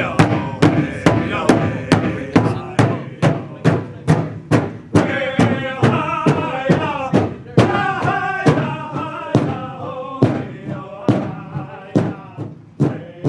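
Powwow drum and singers: a drum struck in a steady beat, a little over two beats a second, under group chant-style singing.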